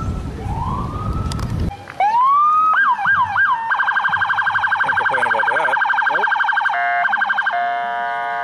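Emergency vehicle's electronic siren, changing through its modes: slow wailing rise-and-fall sweeps, then quick yelps, then a long stretch of very fast repeated warbles. About two seconds in, a low rumble under the wail stops abruptly.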